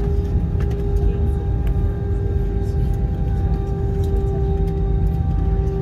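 Cabin of an Airbus A321-200 taxiing: a steady low rumble with a steady engine whine over it, and a few faint ticks.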